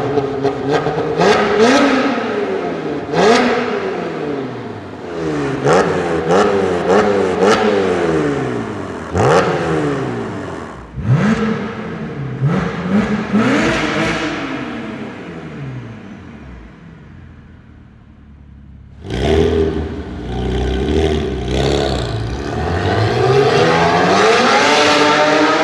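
Porsche Boxster S 987's 3.2-litre flat-six engine, breathing through a Capristo valved exhaust, revved in a string of quick blips that each rise and fall. It then drops back, comes in again suddenly and loudly about three-quarters of the way through, and climbs in one long steady rise in revs near the end.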